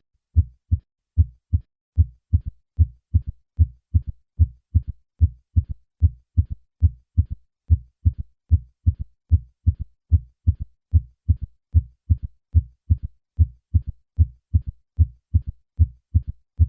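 Heart sounds with a third heart sound (S3): a steady series of short, low-pitched thuds in a triple, galloping rhythm, the extra faint beat falling in early diastole just after the second heart sound. This ventricular gallop is normal in children and young adults, but in adults over 40 it usually indicates heart failure.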